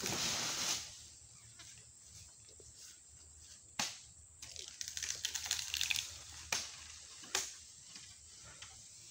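Oil palm fronds and fruit bunches being cut with a long-poled harvesting sickle: a short rush of rustling at the start, a crackling stretch in the middle, and three sharp knocks spread through.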